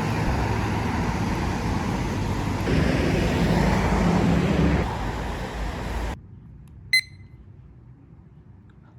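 Steady, loud background noise with a low rumble, like street ambience, that cuts off abruptly about six seconds in; a single short high beep follows about a second later over quiet room tone.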